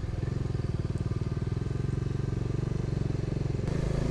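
Motorcycle engine running at low speed with a steady, rapid firing beat. Near the end the sound cuts abruptly to a smoother, steadier engine drone.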